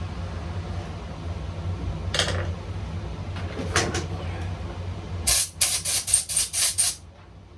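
Hand tools being handled and rummaged through: a couple of light clicks, then a quick clatter of about seven sharp knocks over a second and a half, over a steady low hum.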